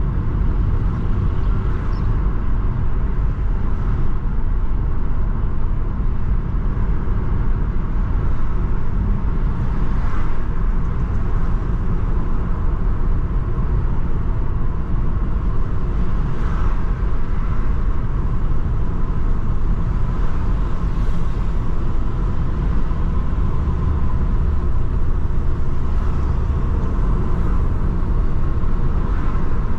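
A car driving along a city street: a steady low rumble of engine and tyre noise, with a few faint swells as traffic passes.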